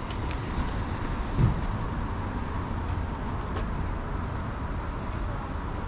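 Street ambience: a steady low rumble of city traffic, with a few faint ticks and a short low thump about a second and a half in.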